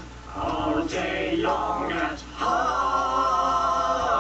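Voices singing a cappella in chorus: a few short sung syllables, then a long held final note about halfway through.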